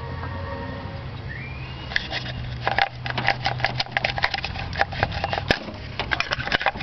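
Irregular clicking and knocking of small hard parts and tools being handled, starting about two seconds in, over a steady low hum.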